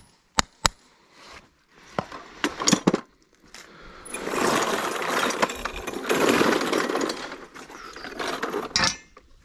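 Two ringing metal hammer strikes, then a few scattered knocks, then about five seconds of loud, rough, continuous noise that ends a little before the close.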